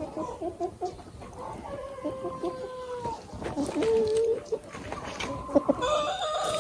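Chickens clucking in short repeated notes, with a few longer drawn-out calls over them.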